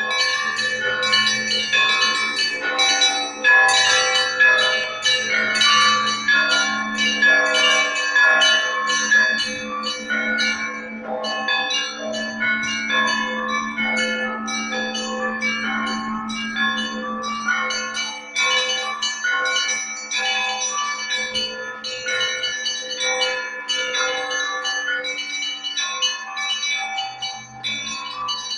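Russian Orthodox church bells ringing a festive peal after the Christmas liturgy: many bells at different pitches struck in quick succession over the deep hum of a large bell.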